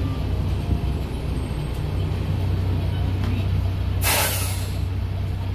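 Diesel engine of an old 1999 Volvo bus running steadily from inside the cabin, with a short, loud air-brake hiss about four seconds in.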